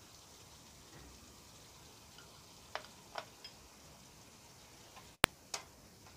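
Beef liver curry simmering faintly in a pan, with a few soft pops from the bubbling sauce about three seconds in. A sharp click comes just after five seconds, and a softer one follows.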